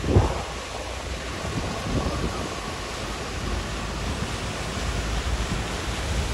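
Wind noise on the microphone over the wash and splash of vehicles driving through flood water on the road.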